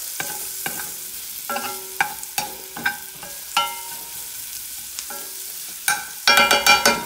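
Diced onions and green peppers frying in bacon grease in a cast-iron skillet, a steady sizzle, while a metal spoon stirs and scrapes them, each stroke clicking and briefly ringing on the pan. The clicks come thicker and louder near the end.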